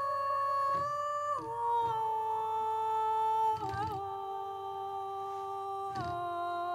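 Sampled female vocal from the ETHERA EVI True Legato patch, sung on a wordless hum-like vowel. Long held notes glide down step by step in a slow falling legato line, with a small turn in the voice near the middle. Faint knocks fall at some of the note changes.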